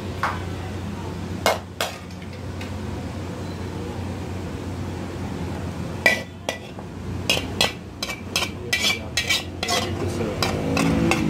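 A metal ladle and pans clinking and knocking as food is served onto a plate. There are a few knocks in the first two seconds, then a quick run of clinks from about halfway, over a steady low hum.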